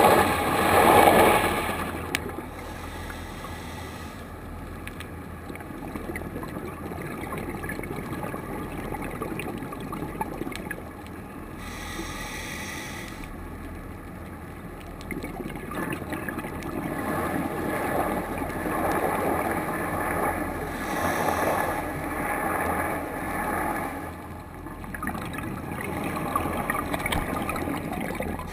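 Underwater sound heard through a camera housing. A loud rush of scuba exhaust bubbles in the first two seconds, then a steady low underwater noise that swells and fades, which the uploader puts down to a boat on the surface.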